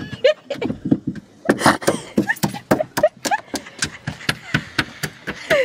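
A fast, irregular run of sharp knocks and taps, several a second, mixed with short bursts of laughter.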